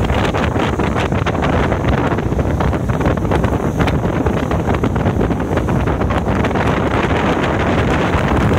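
Heavy wind buffeting the microphone on a small open boat under way, with the boat's running noise underneath as a steady low rumble.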